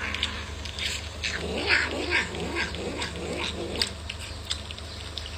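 A cat making a run of short vocal calls, about two to three a second, that thin out after about three seconds, over a low steady hum.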